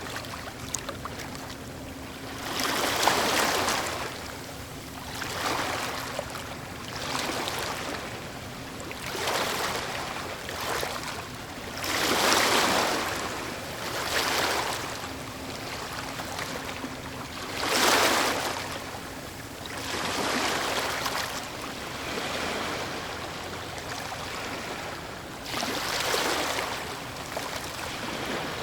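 Medium waves breaking on a fjord shore, recorded close: a wash of surf that swells and falls every two to three seconds, a few waves breaking louder than the rest.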